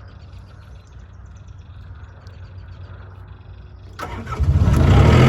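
A diesel skid steer engine is started: a click about four seconds in, then a brief uneven cranking that catches within a second and settles into a loud, steady run.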